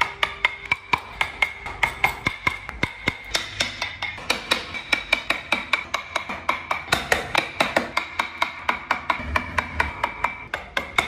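Quick, even hammer taps on a steel carving chisel cutting into wood, about five a second, each with a slight metallic ring.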